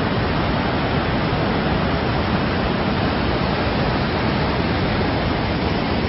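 Mountain stream rushing over boulders: a steady, even rush of white water.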